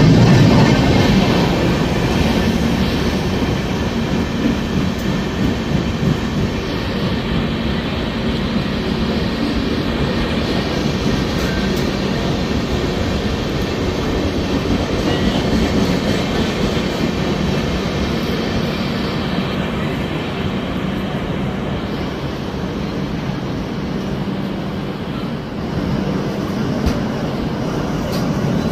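Indian passenger express train at a station platform: a steady rumble and hum from the train, a little louder in the first second.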